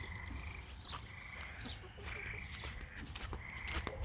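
Frogs calling: a string of short, steady, high-pitched calls about once a second, with a few faint clicks among them.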